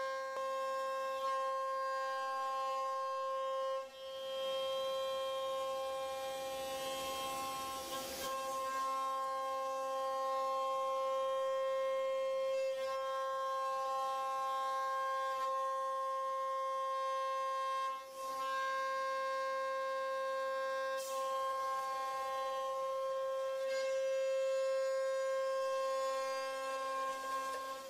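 CNC router spindle whining at a steady high speed while milling a wooden part, a constant pitch held throughout with brief dips and faint scrapes a few times as the cutter works the wood.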